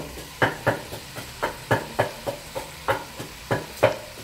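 Pestle pounding spices in a mortar: a steady run of sharp strikes, about three a second, each with a short ring.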